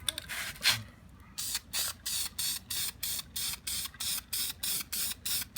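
Aerosol spray-paint can spraying in short, even bursts, about three a second, starting a little over a second in, after a sharp click.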